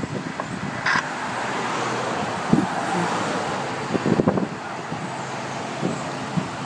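Steady street traffic noise, with a brief high chirp about a second in and a few light knocks near the middle.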